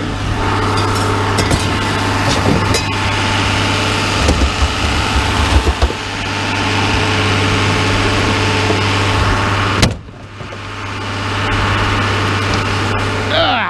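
A vehicle engine idling steadily, with a few sharp knocks over it. The sound drops out abruptly about ten seconds in and then builds back up.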